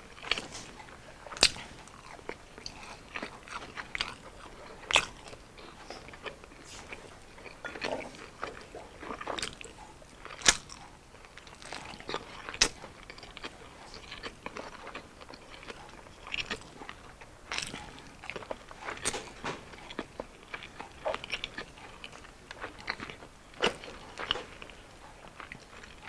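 Close-miked eating: a person biting and chewing crunchy deep-fried battered street food, with sharp, irregular crunches every second or so between quieter chewing.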